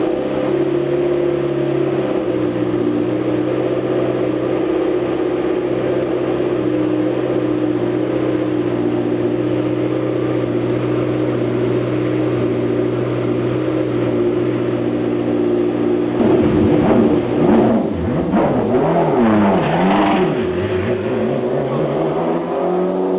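McLaren MP4-12C GT3's twin-turbo V8 idling steadily, then revved several times in quick succession about sixteen seconds in, the pitch rising and falling, before settling back to idle.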